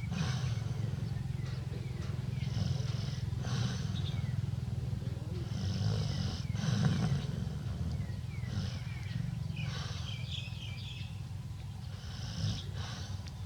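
An elderly woman snoring loudly: a deep, continuous low rattle with breathy hisses every few seconds.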